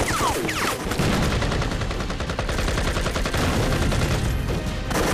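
Gun battle: dense, continuous volleys of rifle and rapid automatic gunfire, shots following each other with no pause.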